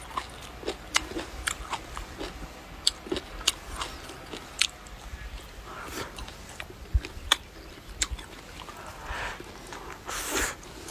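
A person chewing crisp food close to the microphone: a run of irregular crunches and mouth clicks.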